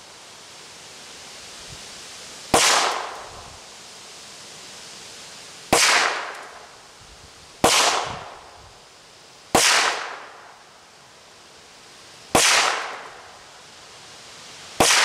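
Ruger Mark III Hunter .22 LR pistol firing 40-grain copper-plated Winchester rounds, six shots at a slow, deliberate pace two to three seconds apart. Each is a sharp crack that trails off over about a second.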